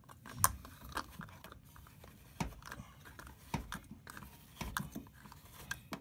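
Plastic clicking and scraping as the cleaned drain filter of a Samsung washing machine is pushed back into its housing and twisted home, with short sharp clicks about a second apart.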